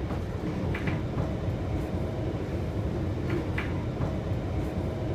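London Underground train running, heard from inside the carriage: a steady low rumble of wheels on track, with a few short high squeaks about a second in and twice more past the three-second mark.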